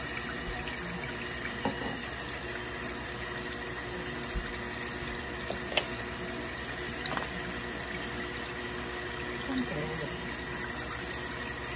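Electric immersion blender running steadily in a glass bowl of melted oils and waxes, its motor whining evenly as the blade churns the liquid. A few light taps come through over it.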